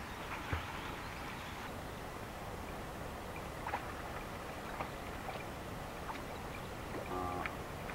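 Pond water lapping and splashing as a swimmer pushes a bamboo raft along, over a steady outdoor background with scattered small ticks. A brief pitched call comes near the end.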